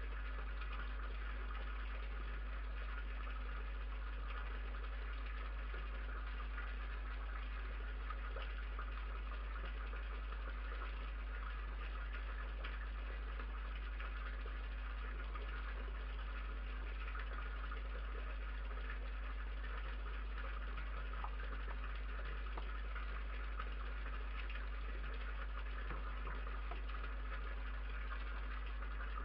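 Steady low electrical hum with an even hiss: the noise floor of a night-vision security camera's microphone. A few faint ticks sound now and then.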